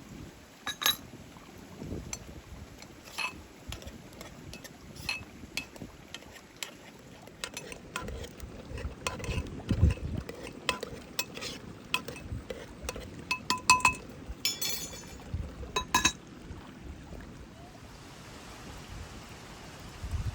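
Light clinks of dishes and utensils, a string of separate sharp clinks with a short ring, coming thicker through the middle and dying away near the end.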